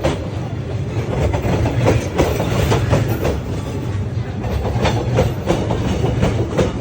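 A train passing at close range: a steady low rumble with its wheels clattering irregularly over the rails.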